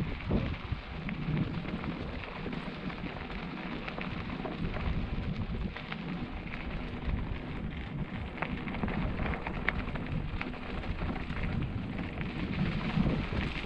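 Mountain bike, a 2020 Kona Mahuna 29er, rolling down a loose gravel dirt road. Its tyres make a steady crunching rumble, with scattered sharp clicks and rattles from stones and the bike over the bumps.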